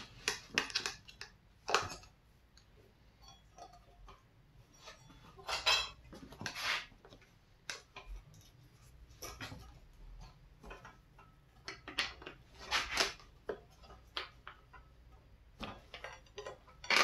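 Steel tire irons clinking and scraping against a spoked dirt bike rim as the tire bead is levered on, in irregular bursts of sharp metallic clinks with short pauses between.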